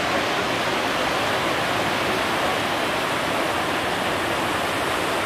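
Whitewater rapids rushing steadily, a constant, even roar of churning river water.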